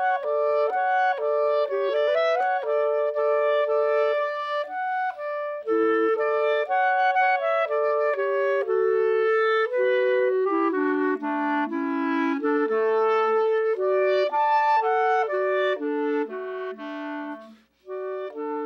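Two clarinets playing a duet, two melodic lines of held and moving notes. Both briefly drop out for a breath near the end, then resume.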